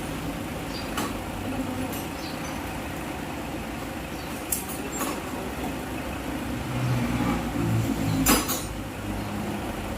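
A vehicle engine running steadily, with a few sharp metallic clicks and a louder knock about eight seconds in.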